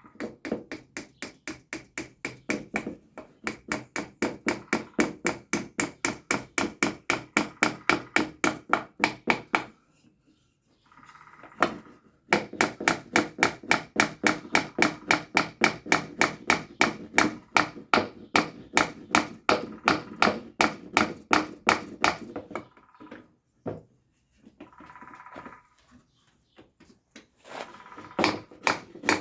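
Rapid, evenly spaced hammer taps, about six a second, working a piece through the wood. Each tap rings slightly. The tapping stops for a couple of seconds near the ten-second mark, resumes, and breaks off into a few short pauses near the end.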